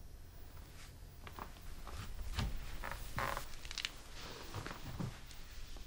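Faint, scattered rustles and soft knocks of a person moving about, with a brief breathy burst about three seconds in.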